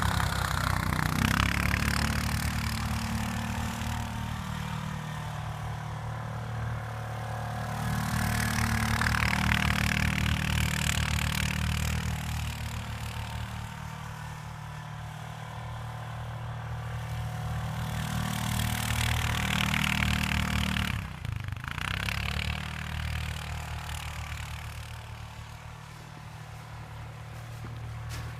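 ATV engine running while the quad is ridden, with a steady low drone under the sound. It swells louder several times, most strongly in the middle and again about two thirds of the way through, with a brief dip just after that.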